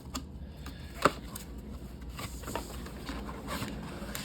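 Hands handling a cardboard trading-card gift box and its packaging: scattered rubbing and light scrapes, with one sharp tap about a second in.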